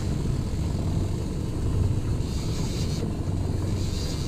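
A boat's motor running steadily at trolling speed: a constant low drone with an even hiss of wind and water above it.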